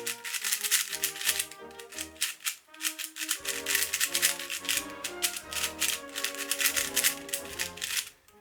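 Rapid plastic clicking and clacking of a YJ ZhiLong 4x4 magnetic speed cube being turned quickly by hand, with background music playing throughout.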